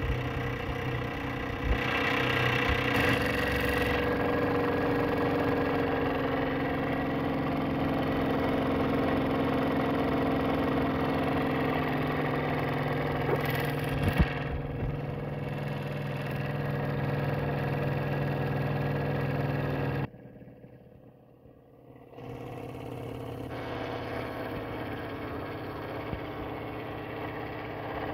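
Wilesco D16 live-steam model engine running steadily near the end of its run. It drops away sharply for about two seconds roughly three quarters of the way through, then comes back a little quieter.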